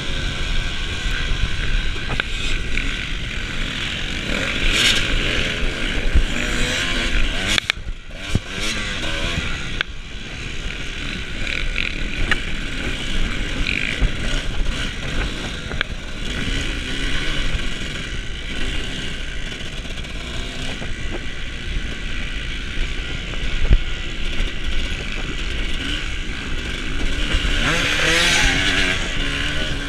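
Off-road racing motorcycle engine running hard, its pitch rising and falling as the throttle is worked, with wind noise and rattling clatter.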